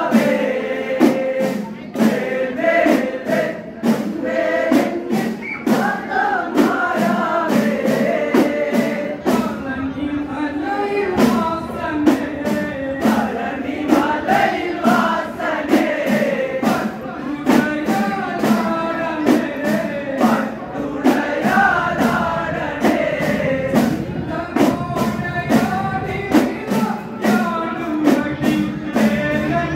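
A group of men singing a Kerala chinthu pattu devotional song through microphones, with small hand drums keeping a quick, steady beat.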